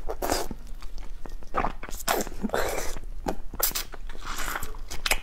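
Mouth sucking and slurping at a piece of cooked crustacean shell to draw out the meat and juice: several short, wet, hissy sucks with small clicks between them.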